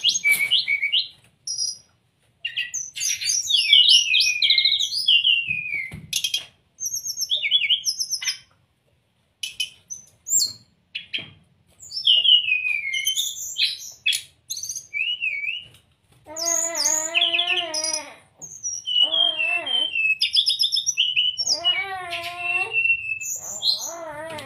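Brown-chested jungle flycatcher singing: a run of varied short, high whistled and chirped phrases with brief pauses between them. From about two-thirds of the way in, repeated lower wavering calls with several overtones join the song.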